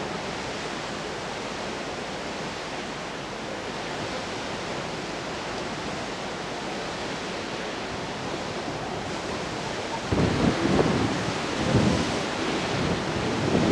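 Steady rushing noise of rough sea surf breaking below. About ten seconds in, wind starts buffeting the microphone in uneven low rumbling gusts, which become the loudest sound.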